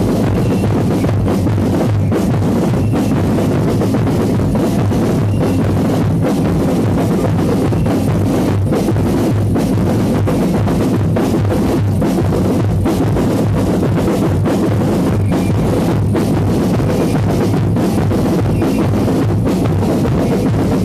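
Loud drum-heavy music: bass drum and snare keeping a steady beat with other instruments.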